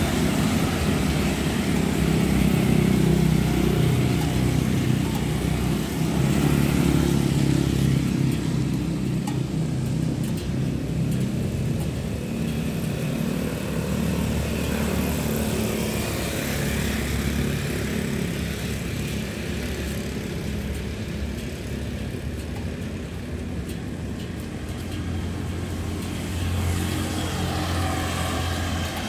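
Motorbike engines and road traffic rumbling steadily on a rain-wet street, swelling as motorbikes ride past.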